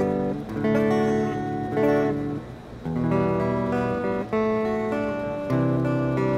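Austin Telecaster electric guitar played on its front (neck) pickup: a run of chords, the notes changing every half second to a second.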